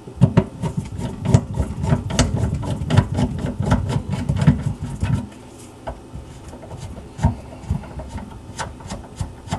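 Knocking, rattling and scraping of an old kitchen sink strainer basket and its fittings being worked loose. The dense clattering lasts about five seconds, then gives way to scattered clicks and knocks.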